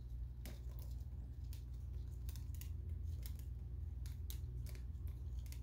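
Light, irregular clicks and taps of a measuring spoon and semi-sweet chocolate chips as the chips are scooped from a small glass jar and sprinkled over batter in a loaf pan, over a steady low hum.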